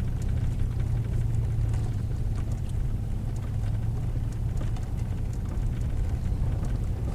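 A truck driving slowly on a dirt road, heard from inside the cab: a steady low engine and road rumble with scattered small ticks and rattles.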